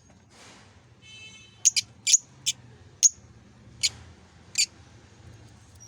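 Lovebirds calling: a short buzzy call about a second in, then a string of short, sharp, high chirps, about seven of them over three seconds.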